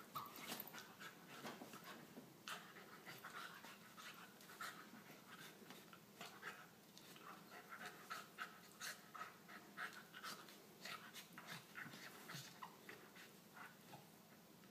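Faint sounds of a Welsh corgi puppy play-fighting with a ferret inside a fabric crate: the puppy panting, with many small, irregular scuffling clicks and rustles.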